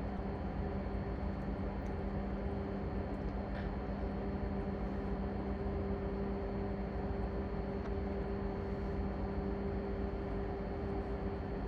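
Steady drone of ship engine-room machinery, with an even hum running under a wide noise.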